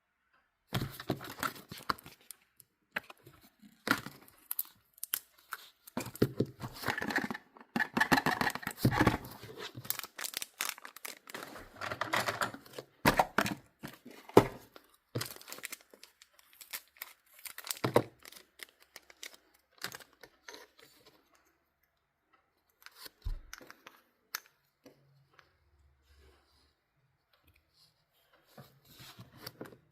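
Toy packaging being torn open and crinkled by hand, in irregular rips and rustles that go quiet after about two-thirds of the way, leaving a few small handling sounds.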